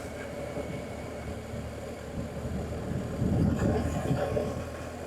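BMW R1250GS Adventure motorcycle's boxer-twin engine running steadily on the road, under wind and tyre noise, swelling in loudness a little past halfway.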